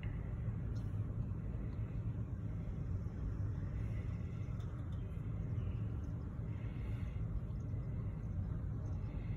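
Steady low rumble of a slow-moving double-stack intermodal freight train rolling across a street crossing, heard from inside a car.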